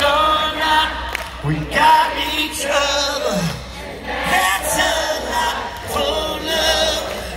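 Large concert crowd singing along together, many voices carrying the melody with little else behind them.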